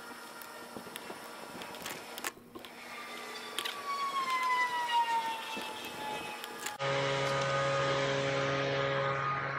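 A passing engine whose whine falls steadily in pitch, then a steady low engine drone that sets in abruptly about seven seconds in.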